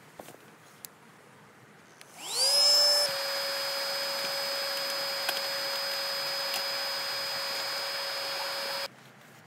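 Cordless electric air pump deflating an air mattress: the motor spins up with a rising whine about two seconds in, then runs steadily, sucking the air out, and stops abruptly near the end.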